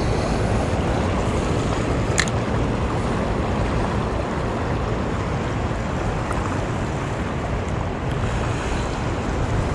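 Steady rush of a fast-flowing river mixed with wind buffeting the microphone, with a single sharp click about two seconds in.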